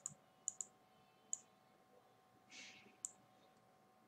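Faint computer mouse clicks: a handful of short, sharp clicks, some in quick pairs, with a brief soft rustle a little past halfway.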